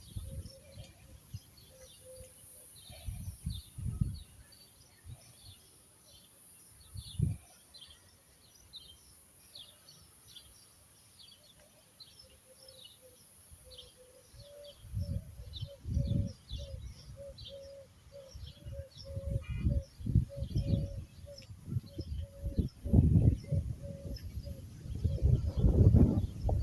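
Small birds chirping steadily. A lower repeated note joins about halfway through, and loud low rumbling gusts come and go, heaviest in the second half.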